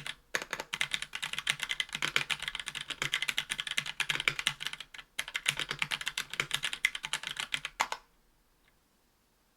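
Fast typing on a 60% aluminium-cased keyboard with Hako Royal Clear tactile switches and GMK keycaps: a dense run of keystroke clacks with two brief pauses, stopping abruptly about eight seconds in.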